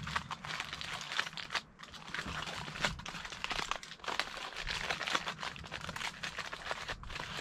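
Aluminium foil crinkling and crackling as hands fold and crimp it shut into a packet, an irregular run of small crackles.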